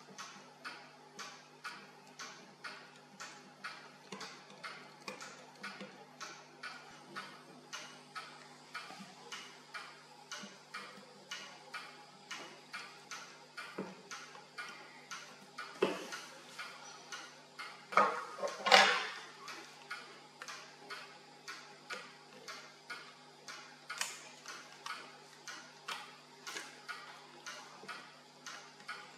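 OISA 10½-ligne watch movement ticking evenly, heard close up. Just past halfway come a few louder clicks and a short scrape of small tools on the movement.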